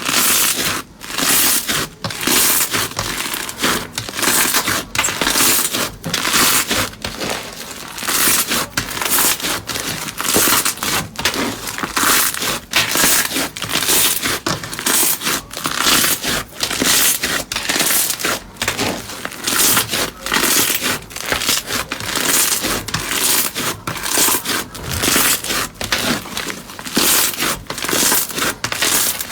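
Slime being squeezed and worked by hand, giving a dense, irregular run of crackling and crinkling clicks that starts suddenly and keeps going.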